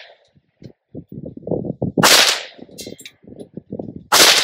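Kel-Tec CMR-30 semi-automatic rifle in .22 WMR firing two single shots about two seconds apart, the second near the end.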